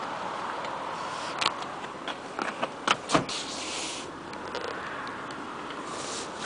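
Handling noise from a handheld camera being moved into a car's cabin: a run of knocks and clicks, two sharper ones about three seconds in, and brief rustling over a steady background hiss.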